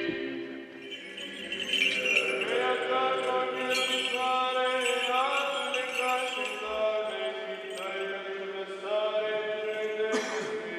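Slow Orthodox liturgical chant sung in the church, with long held notes that slide from one pitch to the next. A short burst of noise cuts in near the end.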